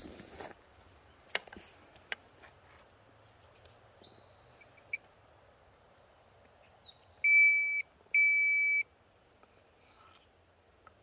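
Two loud, steady electronic beeps, each a bit over half a second long, one right after the other about seven seconds in, with a few faint clicks and short high chirps earlier.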